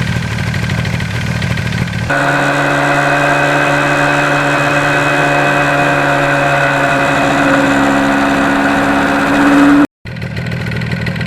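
Yamaha RD400's two-stroke twin engine running under way, holding a steady note. The sound changes abruptly about two seconds in, and the pitch climbs a little as it revs up near the end. It cuts out for an instant about ten seconds in.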